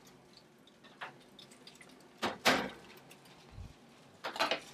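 A few separate clunks and scrapes as a gas cooker's oven door is opened and a roasting tray is pulled out. The loudest knock comes about halfway through, with another cluster near the end.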